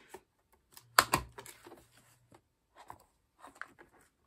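Clear plastic binder pocket pages crinkling as photocards are handled, with scattered soft clicks and one sharper tap about a second in.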